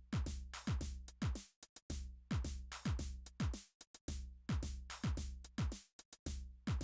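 Electronic background music with a drum-machine beat: deep kicks that slide down in pitch and quick choppy hits, in a pattern that repeats about every two seconds.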